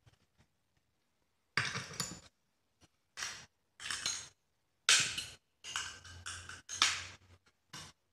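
Glass plates and metal clamps being handled on a bench, the PCB and photomask sandwiched and clamped between the glass: a run of short clinks, taps and scrapes in about six irregular bursts.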